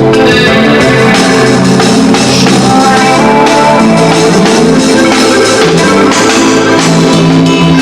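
Live rock band playing an instrumental passage: drum kit with tambourine, guitar and bass, loud and steady, no singing.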